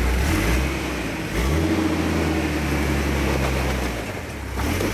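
Jeep Wrangler's engine revving in pushes as it tries to crawl up a wet rock without getting over it. The engine note rises twice in the first second and a half and holds, drops off around four seconds, then rises again near the end.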